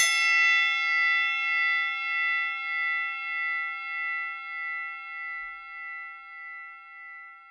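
A single bell-like chime, struck once at the start, rings on in several steady tones and slowly fades, wavering in loudness in a slow, even pulse.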